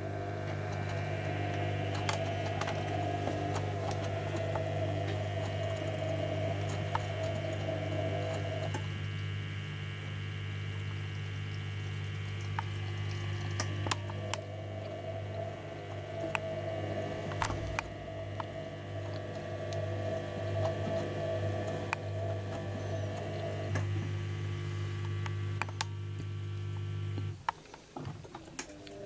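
Panasonic (Vestel-built) washing machine in its wash phase with a near-full load of linen: a steady hum from the recirculation system, under a higher whine as the drum turns the load, and scattered light clicks. The whine drops out for about five seconds partway through and again later, and the hum cuts off near the end.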